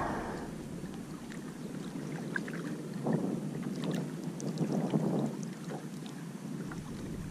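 Wind buffeting the microphone over water sloshing against a small boat's hull, swelling twice, about three and five seconds in, with a few small splashy clicks.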